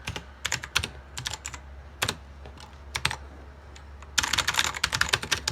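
Typing on a computer keyboard: scattered single keystrokes, then a fast, dense flurry of key clicks starting about four seconds in.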